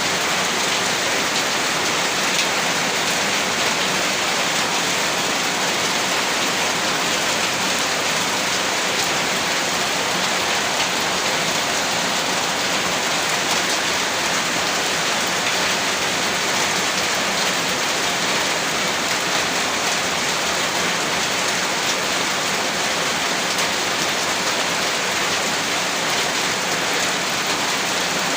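Heavy rain falling in a steady downpour, an even hiss of rain on surfaces without breaks or thunderclaps.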